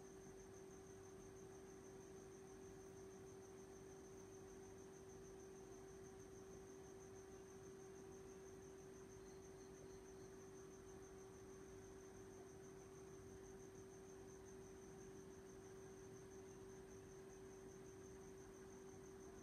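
Near silence: a faint steady hum, with a faint, fast-pulsing high trill.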